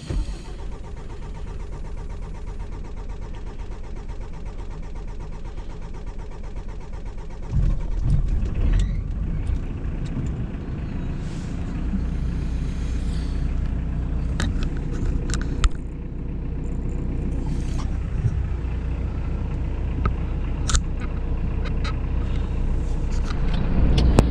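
Mitsubishi L200 pickup's diesel engine started with the key, catching at once and then idling steadily, heard from inside the cab. About eight seconds in it gets louder and deeper, and a few sharp clicks come later.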